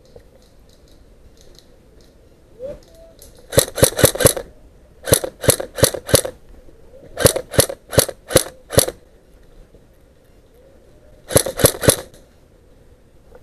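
Airsoft rifle firing single shots in four quick strings of four or five sharp clicks each.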